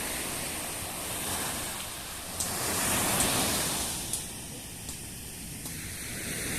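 Wings Air turboprop airliner's engine and propeller noise as it takes off, a steady rush that swells about three seconds in and then eases. A few short high clicks sound over it.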